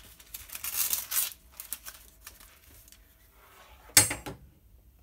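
Crisp rustle of ripstop polyester sail fabric being handled on a glass table, then quiet handling ticks. About four seconds in, a single short, sharp metallic clatter as the hot knife is set into its metal stand.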